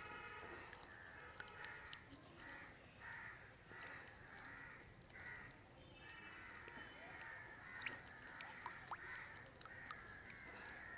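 Faint, rhythmic scraping of a spoon stirring an oily mixture of leaf juice, palm sugar and sesame oil in a small bowl, about one and a half strokes a second, with a few light clicks of the spoon against the bowl.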